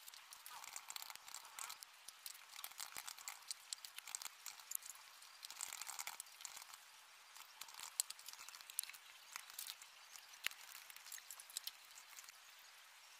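Quiet, irregular clicking of typing on a laptop keyboard, with one sharper tap about ten and a half seconds in.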